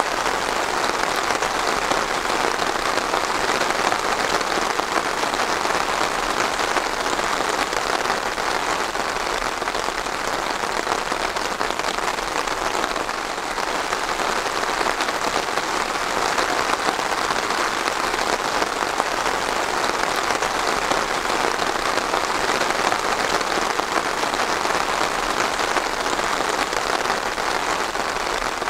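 Steady rain falling on a surface, an even continuous patter.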